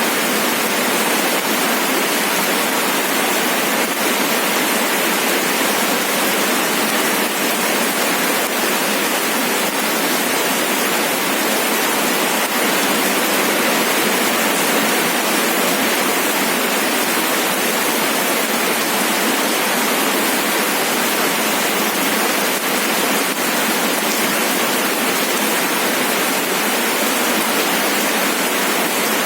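Steady rain falling, an even hiss with no single drops, thunder or other sounds standing out.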